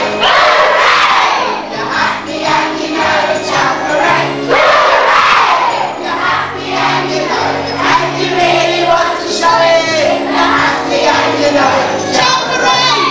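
Backing music playing under a crowd of young children's voices shouting and singing along.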